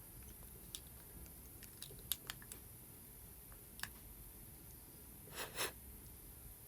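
Faint scattered clicks and taps, with two short scuffs about five and a half seconds in: hands handling a smartphone on the workbench while wrapping rubber bands around it to hold the newly glued screen.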